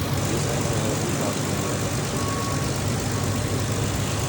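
Car engine idling steadily with a constant low drone, recorded to diagnose a suspected bad alternator.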